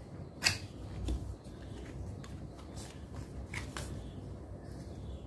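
Cardboard packaging being handled and opened by hand: card rustling and sliding, with a few sharp scrapes or taps. The loudest comes about half a second in, others about a second in and again near four seconds.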